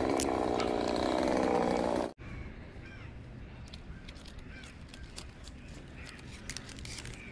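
Chainsaw idling steadily, then cutting off abruptly about two seconds in. A quieter outdoor background follows, with scattered light clicks and a few faint crow caws.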